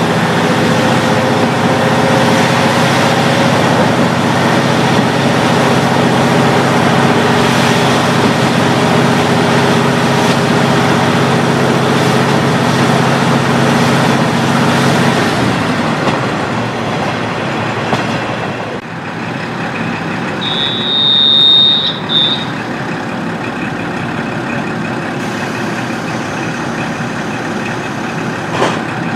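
KiHa 40 diesel railcar's original DMF15HSA engine running under power, heard from inside the car, its pitch climbing slowly at first. About halfway through the engine eases off and the car runs on more quietly. About two-thirds of the way in a brief high steady tone sounds, and there is a sharp click near the end.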